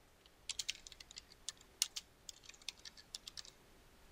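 Typing on a computer keyboard: a short run of faint, quick key clicks as a two-word phrase is typed. It starts about half a second in and stops about half a second before the end.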